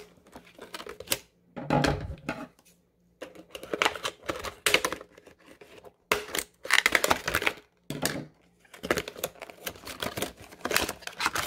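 Scissors snipping through a stiff plastic blister pack, with the plastic crackling and crinkling as it is handled and pulled apart. It comes in irregular bursts of sharp clicks and rustles with brief pauses between.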